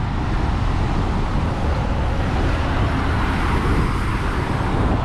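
Road traffic noise from vehicles passing on a busy road, a steady wash of sound that swells slightly about three seconds in.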